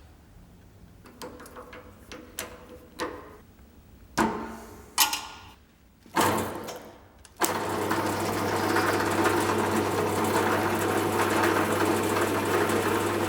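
Workshop handling knocks and a few brief noisy bursts, then a small electric power tool starts about seven seconds in and runs steadily with a constant hum.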